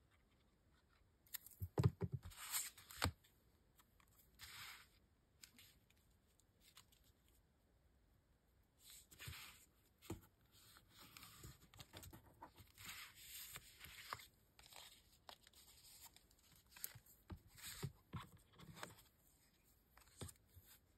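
Kraft paper envelopes and card strips being handled, slid and pressed down on a cutting mat: faint, on-and-off rustling and scraping, with a cluster of sharp taps about two to three seconds in and more near the end.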